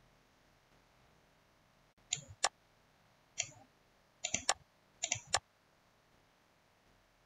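Computer mouse buttons clicking: about seven short, sharp clicks in quick groups, some in press-and-release pairs, between about two and five and a half seconds in.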